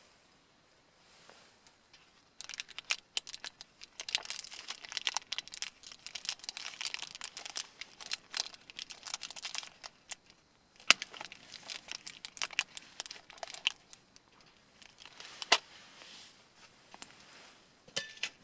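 Plastic packaging being crinkled and torn open, in handling bursts that start a couple of seconds in, pause briefly past halfway and resume, ending with a few sharp isolated clicks.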